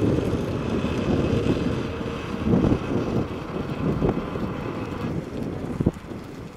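Wind buffeting the microphone over a paragliding tow winch running steadily as it tows the pilot up on the line, with a faint whine that stops about five seconds in. A brief knock comes near the end.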